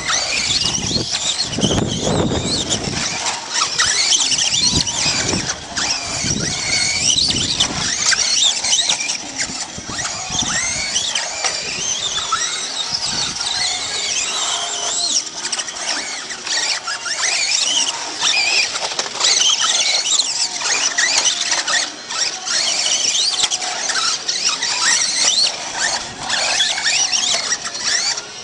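Several radio-controlled off-road cars racing around a dirt track, their motors whining high and swooping up and down in pitch as they speed up and slow down.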